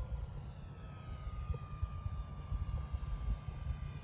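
Radio-controlled model Cessna 182 flying past, its motor and propeller giving a steady whine that drops slowly in pitch as it goes by, over a low rumble.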